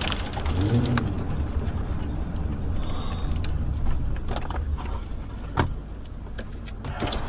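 Steady low road and engine rumble of a car driving, heard from inside the cabin, with one sharp click about five and a half seconds in.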